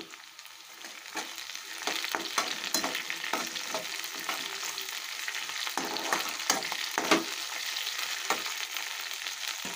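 Chopped onions, green chillies and freshly washed curry leaves sizzling in hot oil in a metal kadai, with a slotted metal spatula scraping and clinking against the pan in repeated stirring strokes; the loudest clink is about seven seconds in.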